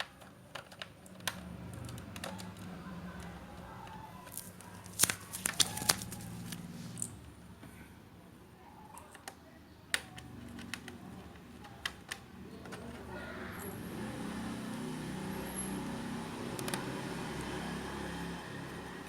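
Small scattered clicks and taps of a screwdriver and screws on a laptop's plastic case, with a cluster of sharper clicks about five to six seconds in, over a low background murmur.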